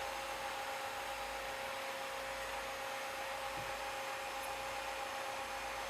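Steady machine hiss with a faint two-note hum.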